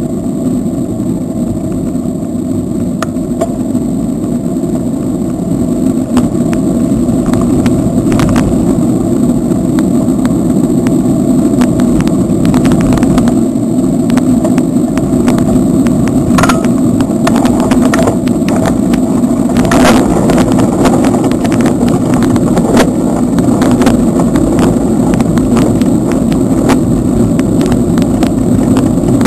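Steady low rumble of wind buffeting and road noise on a camera carried on a moving bicycle, with scattered clicks and rattles.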